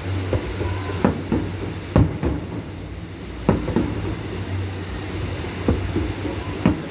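Aerial firework shells bursting over the ocean: a string of booms at irregular intervals, some in quick pairs.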